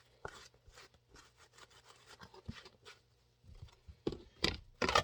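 Wiping and rubbing over a holster shell: a run of faint, scratchy strokes, with a few sharper handling knocks near the end.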